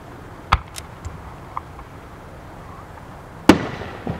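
Aerial firework shells bursting: a sharp bang about half a second in, a few smaller pops after it, then the loudest bang near the end, echoing away.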